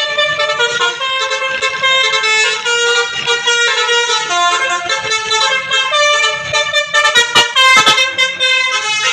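Indonesian tour bus telolet horn playing a tune of stepping multi-tone notes. About seven seconds in, a quick cluster of sharp clicks cuts across it, the loudest moment.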